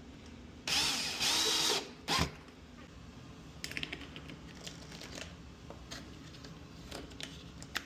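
A small electric motor whirs loudly for about a second, then there is a clunk, followed by scattered light clicks of lock hardware being handled.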